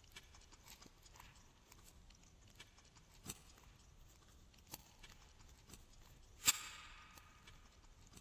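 Glossy slime being squished and poked by hand: faint sticky clicks throughout, with a few sharper pops. The loudest pop comes about six and a half seconds in and trails into a short crackle.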